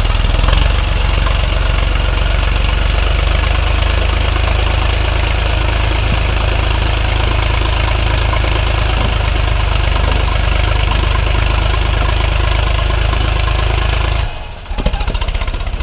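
Sonalika tractor's diesel engine running steadily with a fast even beat while it works to pull a loaded trailer through deep sand. The sound drops away briefly about a second before the end and then resumes.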